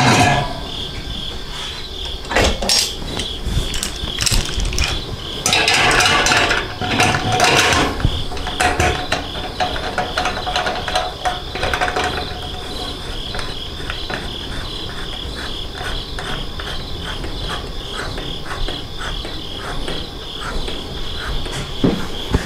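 Stainless steel lid set onto a milk-can still pot and its rim clamps fastened: metal clinks, knocks and scraping in several short clusters, loudest a few seconds in. Under it a steady high chirp repeats several times a second throughout.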